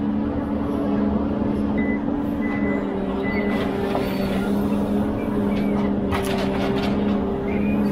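Ponsse Elephant forwarder's 286 hp diesel engine running steadily under the hydraulic crane as it works the grapple over the log load, with a few sharp knocks about six seconds in and short high whistles in the first few seconds.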